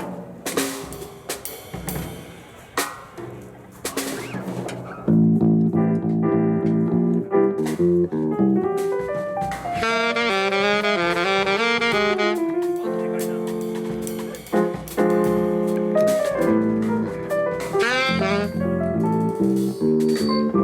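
Live jazz band playing during a sound check. Scattered drum kit hits for the first few seconds, then sustained chords come in with a saxophone line that plays a fast run in the middle.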